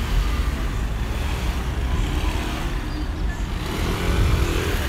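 Steady low rumble of motor vehicles on a city street, swelling briefly about four seconds in.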